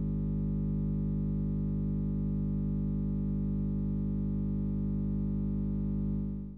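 A steady, unchanging electronic drone: one low buzzy tone rich in overtones, held without variation and fading out at the very end. It is a sonified tone standing for a Haumea-family object.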